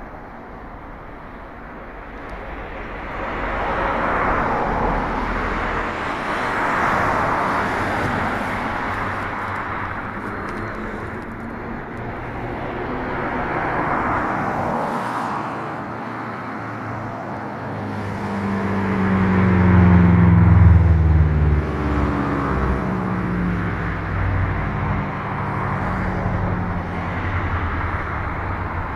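Road traffic passing: cars swelling and fading one after another, then a heavier vehicle's engine, louder, going by about two-thirds of the way through with its pitch falling as it passes.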